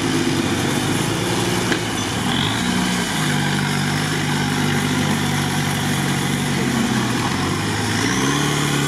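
Engine of a heavily modified UAZ off-roader on huge mud tyres, working under load as it crawls through a deep mud pit. The revs step up about three seconds in, sag briefly, and rise again near the end.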